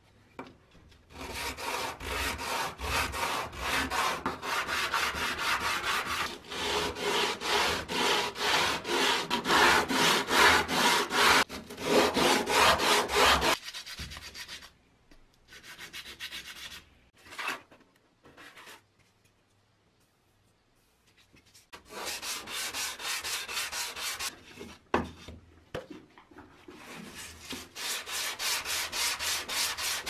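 Small wooden parts of a coffee grinder rubbed rapidly back and forth by hand on a sheet of sandpaper laid flat on a wooden bench, giving a fast scratchy rasp. The sanding stops for several seconds in the middle, with a couple of light knocks, then starts again.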